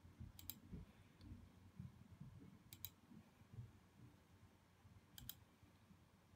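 Faint computer mouse button double-clicks, three of them about two and a half seconds apart.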